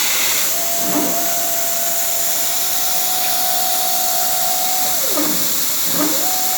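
Steady hiss from a plasma cutting setup, with a motor whine that holds one steady pitch for about four seconds, slides down as it slows, then rises and falls again briefly near the end. This is typical of a CNC plasma table's drive moving the torch between holes.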